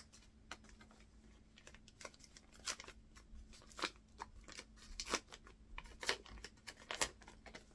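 Paper greeting-card envelope being opened and handled: a string of short, irregular paper rustles and crinkles.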